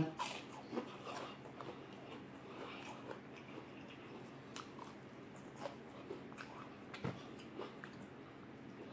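Quiet close-up chewing and mouth sounds of a man eating, with scattered small wet clicks and smacks and a sharper one about seven seconds in.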